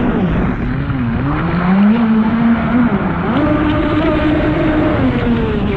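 Boat motor running at speed over rushing water and spray, its pitch wavering with the throttle: it climbs about three seconds in and drops back near the end.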